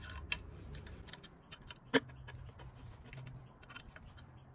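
Light scattered clicks and taps of a sewing machine's top cover parts being pressed into place by gloved hands on the metal machine head, with one sharper click about two seconds in.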